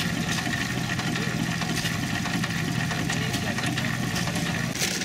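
Antique 1925 Hercules hit-and-miss gas engine running steadily, its heavy flywheels turning. The sound changes just before the end.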